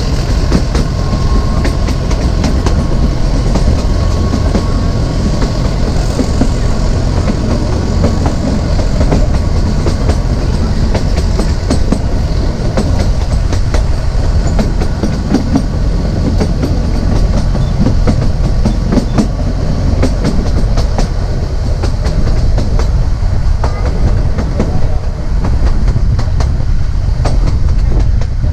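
Narrow gauge passenger train running on the track, heard from on board: a steady heavy rumble of the wheels with a constant run of sharp clicks and clatter as they pass over the rail joints.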